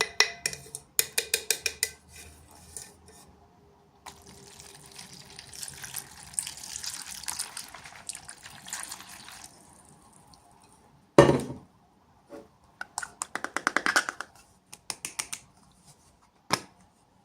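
Small objects being handled during an unboxing: quick runs of crackly clicks, a hissy rustling stretch of several seconds, and one louder thump about eleven seconds in.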